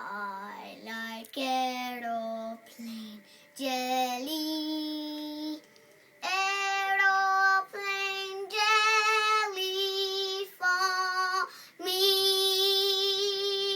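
A young girl singing solo with no accompaniment: a string of short sung phrases, ending on one long held note with a slight vibrato.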